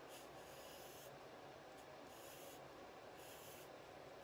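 Faint scratching of a graphite pencil on paper as it draws long curved strokes, about four strokes, each lasting most of a second, with short pauses between.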